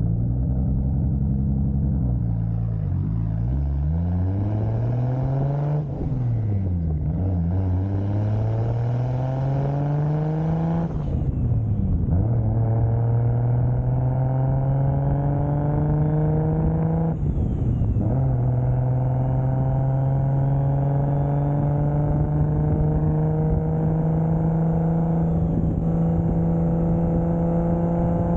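1995 Toyota Soarer's single-turbo 2JZ straight-six driving through the gears with a manual gearbox: the engine note slows, then climbs and drops back at gear changes about 6, 11 and 17 seconds in, and rises slowly through the rest. A faint high whistle rises and falls over it.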